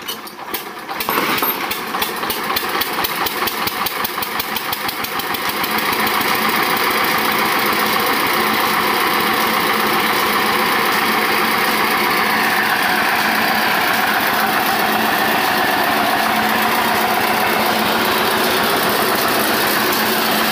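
Eicher diesel engine being hand-cranked and catching about a second in. Its chugging beat quickens over the next few seconds and settles into a steady run, turning the flat belts that drive a flour mill.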